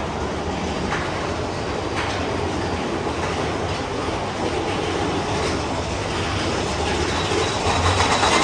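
Big Thunder Mountain Railroad's mine-train coaster cars rolling along the track, a steady rumble and clatter with a few clicks, getting louder near the end.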